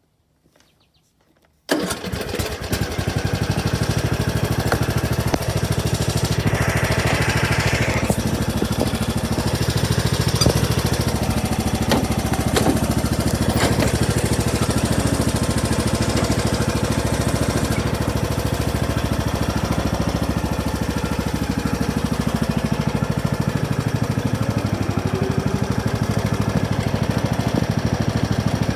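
Riding lawn mower's engine starts suddenly about two seconds in and then runs steadily.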